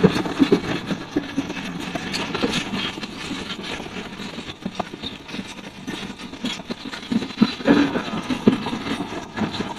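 Pakistan Railways passenger coaches rolling past, their wheels clattering over the rails in a steady rumble with irregular knocks and clicks.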